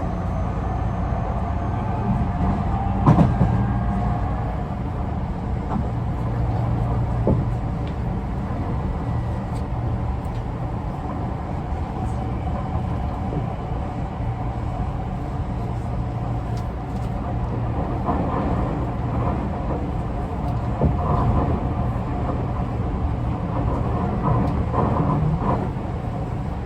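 Interior running sound of a Tobu 50090 series electric train car on the move: a steady low rumble of wheels on rail with faint motor whine. A sharp knock comes about 3 seconds in, and lighter clicks and knocks follow later. The recordist says this car's motors sound unusual and may be of a different type from the rest of the fleet.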